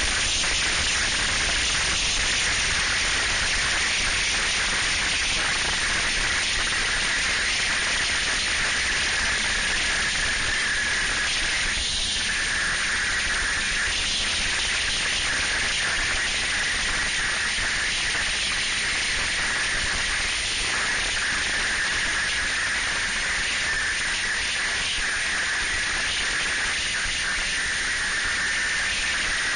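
Steady rushing hiss of wind and a snowmobile running at speed, as picked up by a camera mounted on the moving sled. It holds an even level throughout, with a constant high whine and a low rumble under the hiss.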